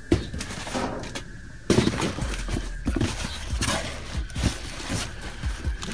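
Cardboard boxes being rummaged through and shifted in a dumpster: an uneven run of knocks and thuds with rustling and scraping between them.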